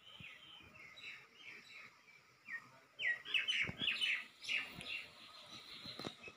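Bird chirping: short, high chirps falling in pitch, coming faster in a quick run about three seconds in, with a couple of soft knocks.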